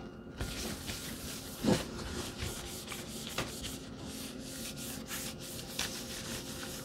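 A wet wipe rubbing back and forth across the glass screen of a Nook HD+ tablet, in uneven strokes, with one louder stroke about two seconds in.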